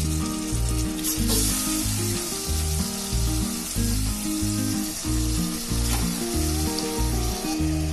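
Marinated chicken pieces going into hot ghee and oil in a pressure cooker, sizzling steadily; the sizzle gets louder about a second in as a piece drops in, with another small knock around six seconds. Background music plays under it.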